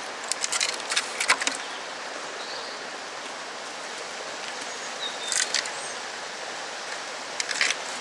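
Steady outdoor background hiss with short clusters of sharp clicks and clatters: a run of them about a second in, another around five seconds in, and a few more near the end.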